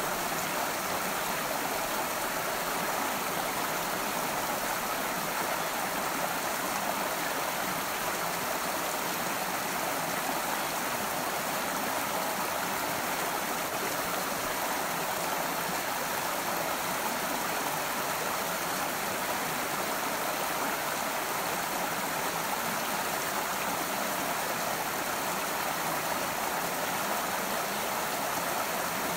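A stream running over rocks: a steady, even rush of flowing water with no breaks or changes.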